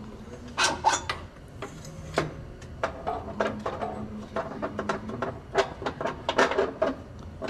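Irregular metallic clinks, clicks and knocks of steel suspension and axle parts being handled and shifted by hand on a side-by-side's front suspension.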